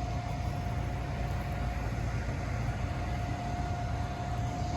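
Heavy diesel equipment running steadily, a constant low engine sound with a steady high whine over it.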